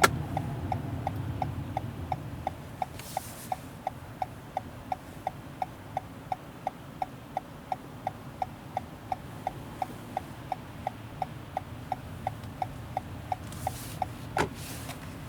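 Car turn-signal indicator ticking steadily, about three ticks a second, over a low, steady road hum inside the cabin. The ticking stops near the end. There are two brief swishes, one about three seconds in and one near the end, and a single sharp knock near the end.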